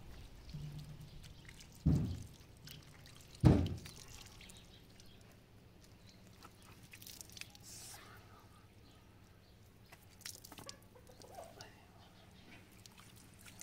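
Water from a small tap on a water tank splashing and dripping as hands are washed and water is splashed onto the face. Two loud dull thumps come in the first few seconds.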